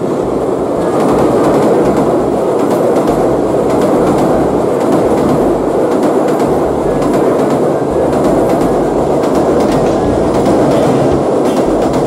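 Passenger train, a diesel locomotive and its carriages, crossing a steel truss railway bridge close by at speed: a loud, steady running noise of wheels on rail with clattering over the rail joints, growing louder about a second in as the train draws level.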